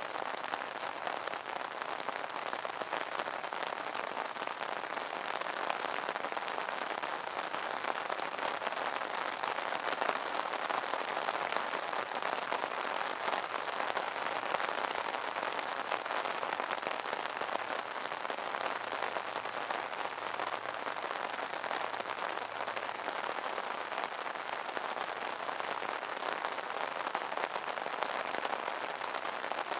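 Steady rain pattering on an umbrella canopy, a dense even patter of many small drop impacts.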